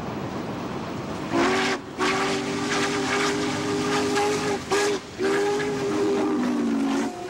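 Steam whistle of Norfolk & Western Class J 4-8-4 No. 611 sounding a chord of several tones over the rumble of the train running at speed. It gives a short blast, a long one, a very brief one, then another long blast.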